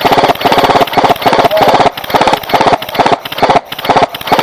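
Airsoft gun firing full-auto in a string of short bursts, about two a second, each a rapid rattle of shots over the whine of its motor and gearbox.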